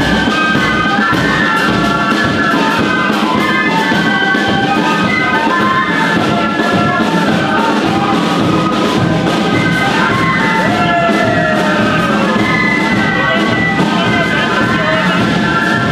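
A band of transverse flutes playing a melody together in several parts, with held high notes.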